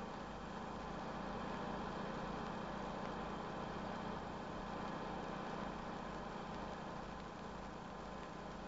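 Unimog engine running steadily, driving the hydraulic grab loader through the power take-off.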